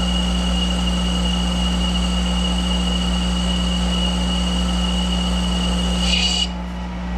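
Monarch 10EE lathe turning pre-hardened steel: a steady hum with a high, steady whine from the cut. The whine stops about six and a half seconds in as the cut ends, and the lathe keeps running.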